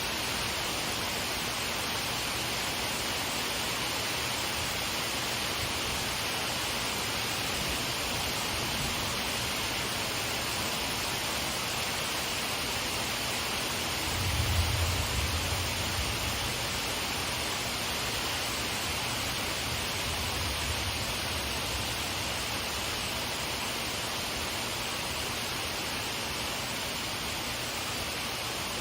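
Steady hiss of a rain shower falling. About halfway through comes a brief low rumble, with a fainter one a few seconds later.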